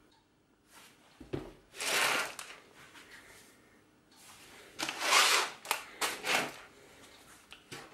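Plastic zip bags of small parts crinkling and sliding across a cutting mat as a hand gathers them into a pile. The sound comes in several short spells, the loudest about two and five seconds in.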